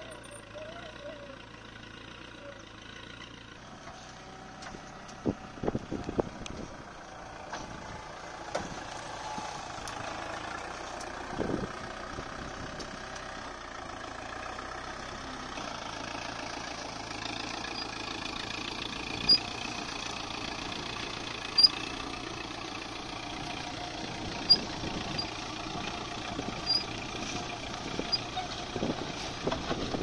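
Kubota MU4501 tractor's four-cylinder diesel running steadily while pulling a mounted plough through soil, with a few sharp knocks scattered through.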